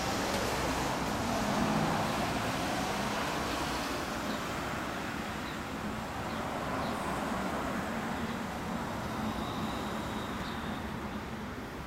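Steady low engine rumble with a noisy hiss, held without revving and easing slightly over the stretch.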